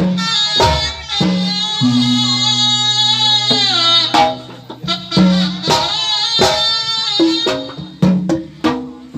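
Sundanese pencak silat accompaniment music: hand drums beating a rhythm under a nasal, reedy wind-instrument melody typical of the terompet, with one long held note in the middle that drops in pitch.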